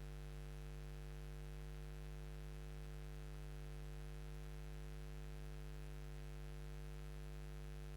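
A steady low electrical hum with a faint hiss under it.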